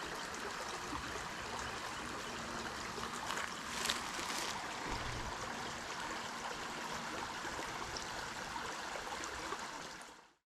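Creek water running steadily over rocks, briefly louder about four seconds in, then fading out near the end.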